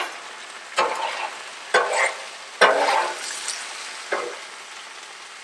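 Metal spatula scraping and pushing vegetables across a hot steel Blackstone griddle, four strokes about a second apart, over a steady sizzle of vegetables frying in oil.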